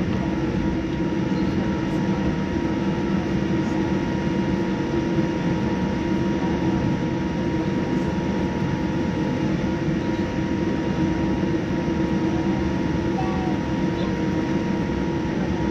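Boeing 787-9 cabin noise: a steady rumble of engine and airflow with a constant hum, unchanging throughout.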